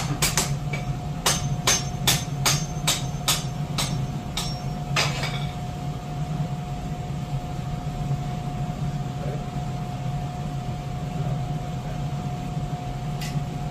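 Hammer blows on metal tractor parts, about a dozen at two to three a second, stopping about five seconds in. A steady hum runs underneath.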